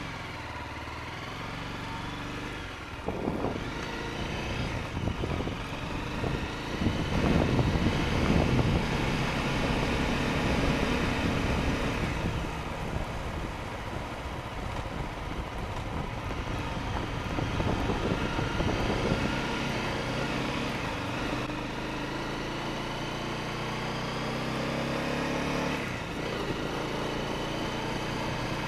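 Honda CRF250L's single-cylinder engine running under way, its pitch rising and falling as the bike speeds up and shifts, with wind and tyre noise, picked up by the bike-mounted dash cam's microphone.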